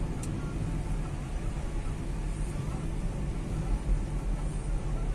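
Steady low rumble of a car's engine and tyres on the road, heard from inside the cabin of the moving car.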